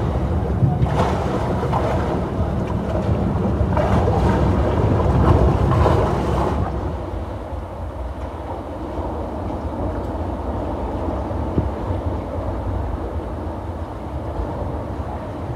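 Motor cruiser passing close by: a low engine rumble, with water rushing in its wash for the first several seconds, then a quieter steady low rumble.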